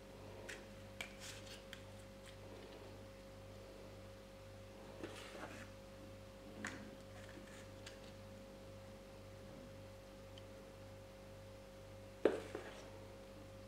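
Metal tablespoon clinking and scraping against a ceramic mixing bowl as thick brownie batter is spooned out: a few scattered light clicks, the loudest about twelve seconds in. A steady faint hum runs underneath.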